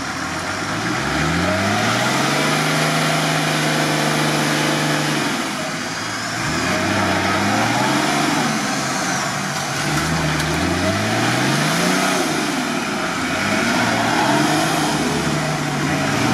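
UAZ off-roader's engine revving in repeated surges as the truck churns through a deep water-filled rut, with splashing water. The pitch climbs about a second in and holds for several seconds, then drops and rises again four or five more times.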